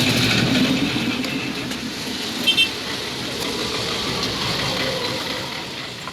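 A motor vehicle running, its noise swelling about a second in and slowly easing off. There is a brief high double beep about two and a half seconds in.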